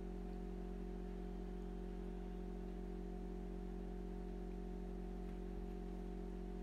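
Steady electrical hum: a low buzz with several fixed higher tones over it, and a couple of faint ticks about five seconds in.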